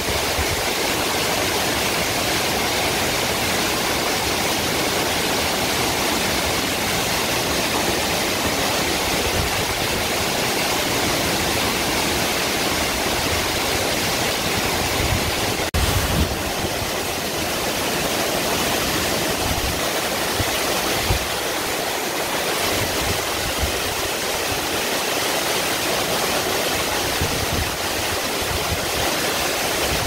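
A waterfall about 50 m high falling into a plunge pool, a steady full rushing of water. It breaks briefly about halfway through.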